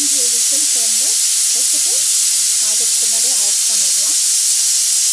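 Stovetop aluminium pressure cooker venting steam through its weighted whistle valve: a loud, steady hiss, the 'whistle' that signals the cooker has reached full pressure.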